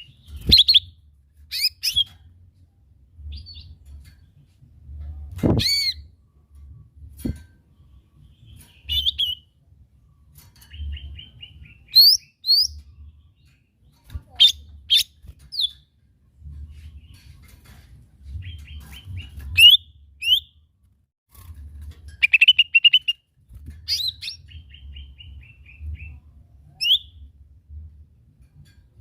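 Cucak ijo mini, a small leafbird, singing in short phrases: sharp chirps, quick upward-sweeping whistles and brief rapid trills of repeated notes, with pauses between them.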